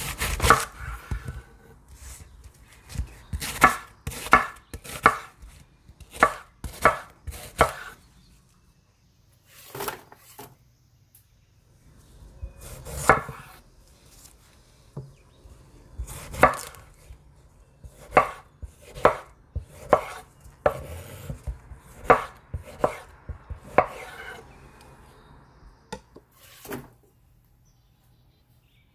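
Kitchen knife chopping food on a cutting board: sharp, irregular cuts in short runs of a few strokes, with pauses between runs.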